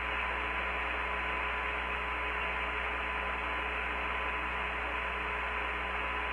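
Steady hiss and hum of the Apollo 15 air-to-ground radio link, an open channel between transmissions, with a thin steady tone under the hiss.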